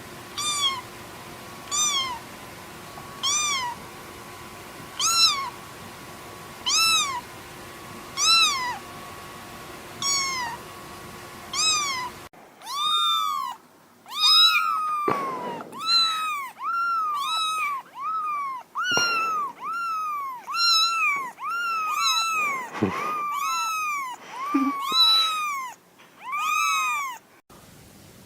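Kittens meowing. First a single kitten mews about every second and a half over a faint steady hum. Then, after a cut, comes a faster, louder run of mews, some overlapping.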